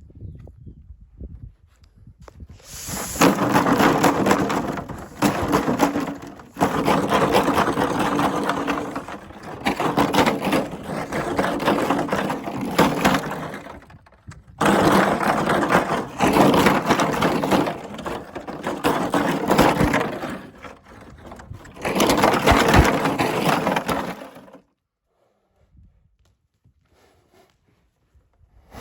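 A mare snorting and blowing hard through her nostrils while playing, in a series of loud, rattling bursts of a few seconds each that stop about 24 seconds in.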